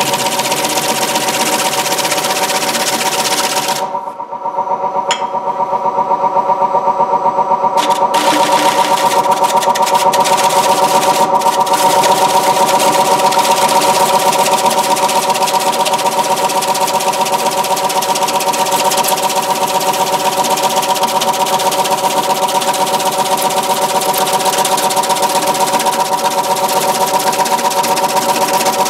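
Wood lathe running with a steady motor hum while a turning tool takes a fine cut across the face of a spinning basswood platter, giving a dense, fast-fluttering hiss. The cutting hiss thins for a few seconds about four seconds in, as the tool eases off the wood, then comes back.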